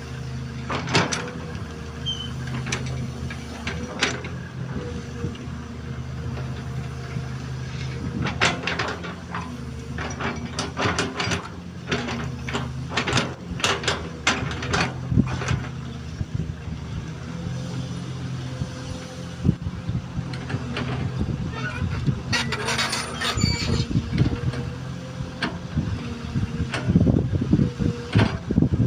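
XCMG XE215C hydraulic excavator's diesel engine running steadily at working revs with a steady whine over it, and repeated clanks and knocks from the machine at work, coming in clusters through the middle and again later on.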